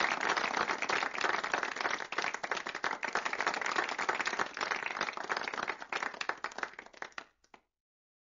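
A group of people applauding with dense, steady clapping that thins out to a few last scattered claps and stops about seven and a half seconds in.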